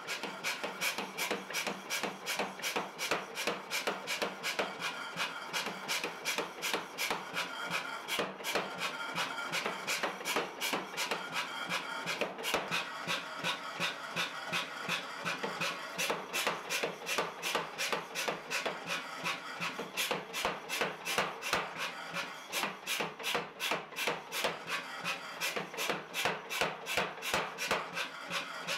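Power hammer striking a glowing layered billet of 1080 and 15N20 steel in a steady rhythm of about three blows a second, forge-welding the layers together into pattern-welded steel.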